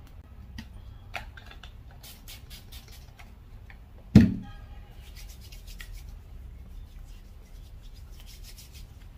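Hands brushing crumbs off the fingers and then rubbing palm against palm, a quick, dry, scratchy rubbing. About four seconds in, one loud knock with a short ring as something hard strikes the glass desktop.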